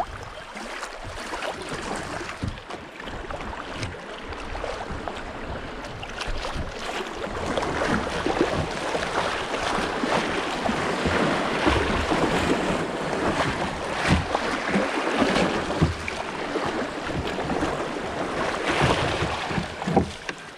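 Fast, muddy river water rushing and churning through a riffle around a kayak, getting louder about eight seconds in, with many small splashes and some wind buffeting the microphone.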